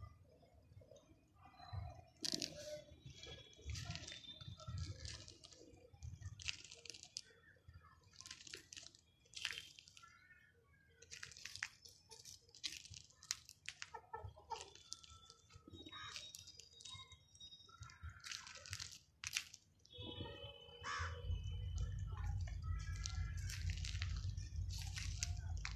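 Faint outdoor yard sounds: scattered sharp clicks and rustles with short, high bird calls, and a steady low rumble that starts about three-quarters of the way through.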